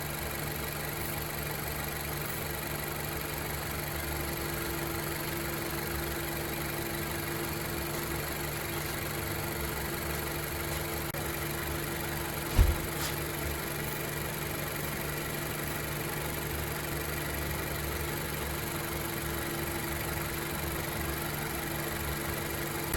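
A 2017 Honda CR-V's 1.5-litre turbo four-cylinder idling steadily while warm, with a single thump about halfway through. A combustion-leak test run at this idle shows a blown head gasket.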